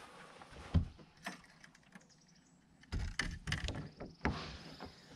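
Scattered knocks and thumps of someone moving about and handling gear on a bass boat's front deck, with a cluster of them about three seconds in.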